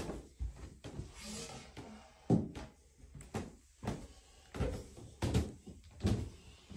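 Footsteps going down carpeted stairs: a run of soft, dull thumps, one every half second or so, the sharpest about two seconds in.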